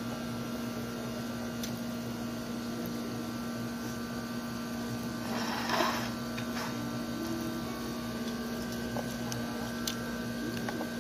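Steady electrical hum in the room, with a few faint clicks. A little over halfway through there is a short burst of eating noise as a bite is taken from chopsticks.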